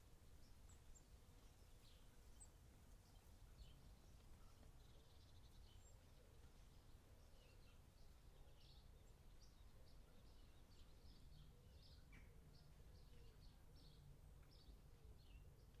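Faint birdsong outdoors: many short chirps from small birds, scattered throughout, over a low steady background rumble.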